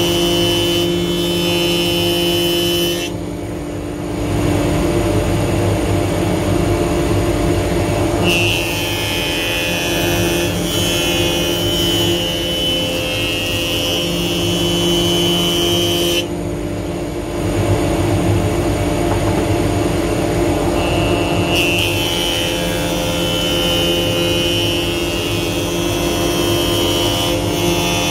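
Felder Hammer A3 31 jointer-planer running while a softwood board is face-jointed over its cutterhead. The cutting comes in three passes, a higher, harsher sound over the steady motor hum, with the machine running unloaded for a few seconds between passes.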